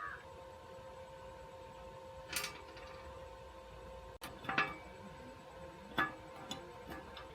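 A few light knocks and clinks, three spaced about two seconds apart, over a faint steady hum.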